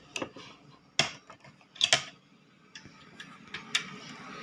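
Irregular clicks and light knocks of an electric iron's parts and cord being handled during reassembly, with the two loudest clicks about one and two seconds in.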